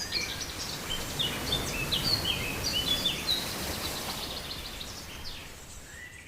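Songbirds chirping and singing, many short high notes in quick runs, over a steady background rush of outdoor noise.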